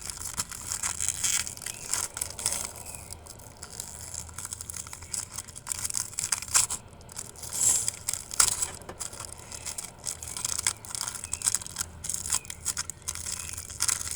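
Foil wrapper of a Pokémon card booster pack crinkling and tearing as it is opened by hand, in irregular rustles with sharper crackles.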